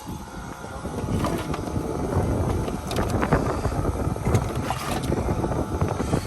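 Wind buffeting the microphone over rustling and light knocking of loose items being handled. The sound is busiest from about a second in.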